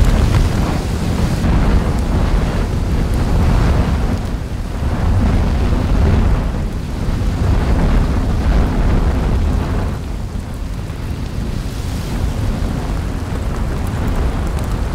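Added volcanic-eruption sound effect, not recorded at the vent: a deep, continuous rumble with a rushing, crackling layer on top. It swells and eases every second or two and settles a little lower about two thirds of the way through.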